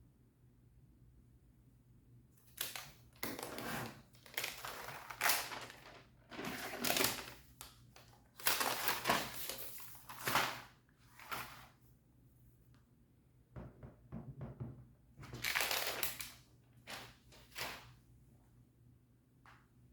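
Packaging being handled: irregular rustling and scraping of paper and cardboard, a second or two at a time, with a few short knocks.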